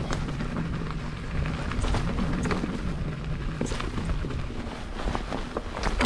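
Specialized Stumpjumper mountain bike rolling over a dirt trail: a steady low rumble of tyres on the ground, with scattered sharp clicks and knocks from the bike over bumps.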